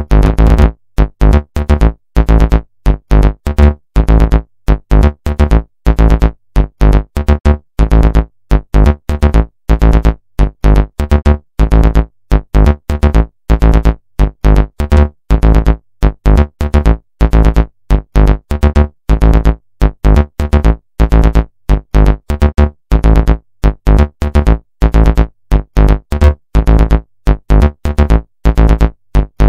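Electronic background music: a synthesizer with heavy bass, played in short, sharply chopped stabs several times a second with brief gaps between.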